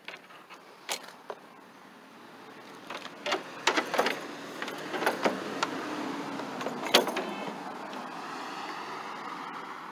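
A passing road vehicle's engine and tyres, swelling from about two seconds in and holding, with a few sharp clicks and knocks of fishing gear being handled.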